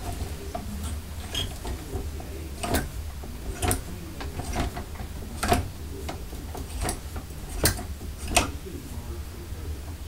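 Clothes hangers clicking and clacking against a closet rack as pants are handled and moved, about seven sharp clicks spread out irregularly, over a low steady hum.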